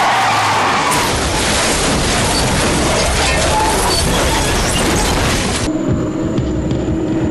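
TV action-scene sound effects of a van ramming a car: a long, loud, dense crash noise that stops abruptly about five and a half seconds in, giving way to a quieter steady hum.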